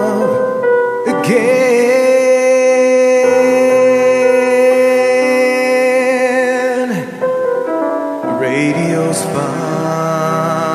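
A man singing the close of a slow ballad, holding one long note with a wavering vibrato over piano and keyboard accompaniment; the note falls away about seven seconds in and the accompaniment plays on alone.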